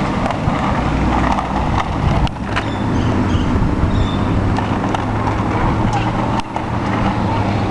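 Street traffic: a steady low engine hum with a few sharp clicks.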